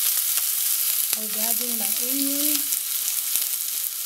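Chopped onion sizzling in hot groundnut oil in a frying pan: a steady hiss with small crackles running through it.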